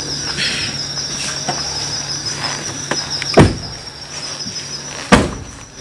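Crickets chirping steadily, with two loud thumps about three and a half and five seconds in, a car door being opened and shut as a passenger gets out.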